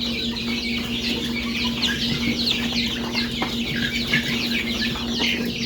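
A group of young chicks peeping nonstop, many short high falling peeps overlapping, over a steady low hum.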